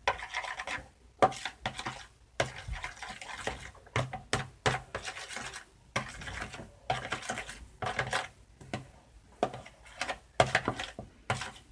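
Spoon stirring a thick shampoo and salt mixture in a bowl, scraping against the bowl in repeated, uneven strokes, one or two a second.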